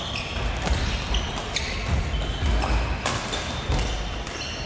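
Badminton rally in a sports hall: several sharp racket strikes on the shuttlecock, short high squeaks of shoes on the court floor, and low thumps of footwork.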